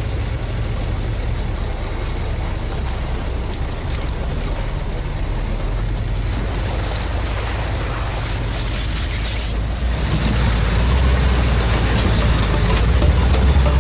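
Off-road 4x4 engine running under a steady wash of driving noise, with a low rumble that grows louder and heavier about ten seconds in.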